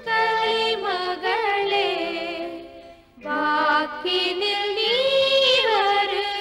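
Tamil devotional song: voices sing an ornamented melody over steady instrumental accompaniment, breaking off briefly about three seconds in before the next phrase starts.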